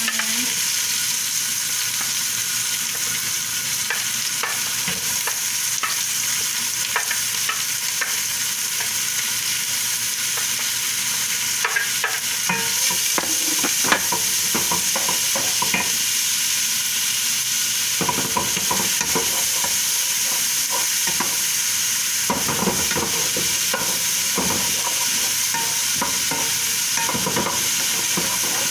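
Garlic and onion sautéing in hot oil with a steady sizzle, while a utensil stirs them with scrapes and clicks against the pan, more often in the second half and with one sharper knock midway.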